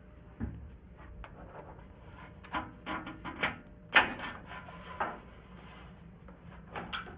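Irregular knocks, clicks and scrapes of a vertical power strip being slid behind the shelves and pressed into place against metal gondola shelving, the loudest knock about four seconds in.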